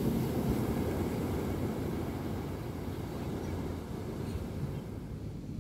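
Beach ambience: a steady low rumble of surf and sea breeze, easing slightly a little after halfway.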